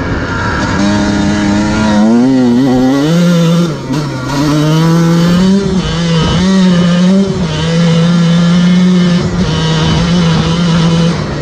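Dirt bike engine running as the bike is ridden along a sandy trail. Its pitch wavers and steps up and down a few times in the first half, then holds steady.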